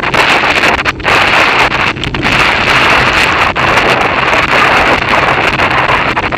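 Loud, steady wind noise on the microphone of a bicycle-mounted camera: rushing air from a fast downhill ride, with brief dips now and then.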